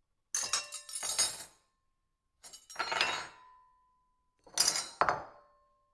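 Silverware clattering on a plate: three bursts of several quick metallic clinks each, a few of them leaving a short ringing tone.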